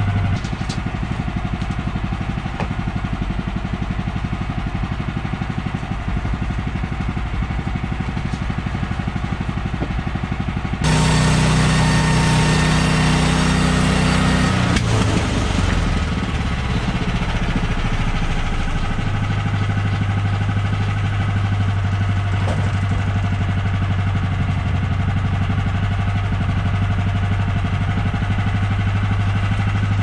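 Portable bandsaw mill's gas engine running steadily at idle. About 11 seconds in it runs louder and harder for about four seconds, then settles back to idle.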